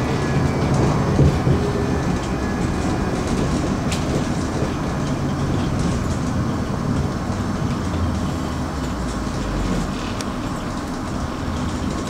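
Berlin commuter train running along the track: a steady rumble with wheel and track noise and one sharp click about four seconds in.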